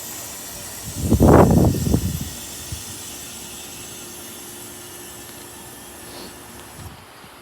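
Outdoor unit of a 2008 Bryant Preferred Series heat pump in its defrost cycle, hissing steadily. A loud, deep rushing burst lasts about a second, starting about a second in, then the hiss goes on evenly.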